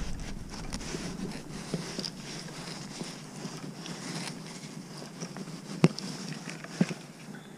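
Faint handling clicks and rustling from a spring-loaded fish lip gripper being clamped onto a bass's jaw. One sharp click comes about six seconds in and a smaller one about a second later.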